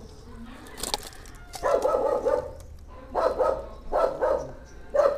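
A dog barking several times, in separate barks spread over a few seconds.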